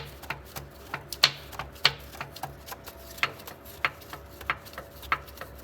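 Irregular sharp clicks and taps, two or three strong ones a second, over a faint steady hum.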